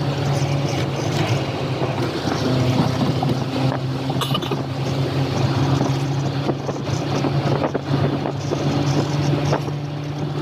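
Steady cabin noise of a vehicle cruising on a highway: an engine hum holding one pitch under a constant wash of tyre and wind noise.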